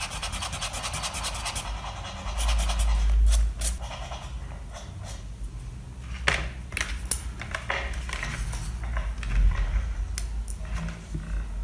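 Rubber eraser rubbed fast over pencil lines on paper for about the first two seconds, erasing part of a drawing. Then a short muffled rush about three seconds in, followed by scattered light taps and knocks.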